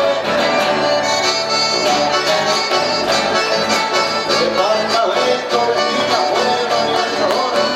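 Live chamamé played by a band, without singing: two accordions to the fore over strummed acoustic guitars and electric bass.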